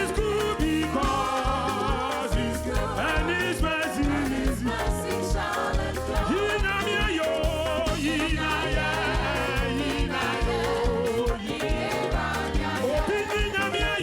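Upbeat African gospel praise music: a steady, fast drum beat under lead singing that the speech recogniser does not pick up as words.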